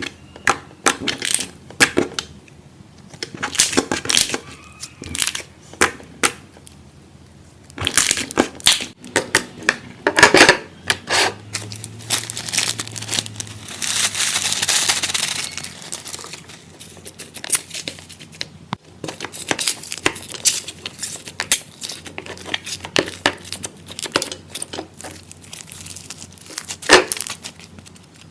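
Floam slime, slime packed with foam beads, being squeezed and worked by hand, with the beads crunching and crackling in many irregular clicks. A denser crunching stretch comes in the middle.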